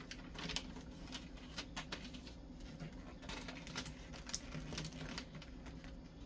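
Wrapping paper and cardboard crinkling and rustling as hands fold and tuck the paper-covered flap of a box, a run of small irregular crackles and clicks.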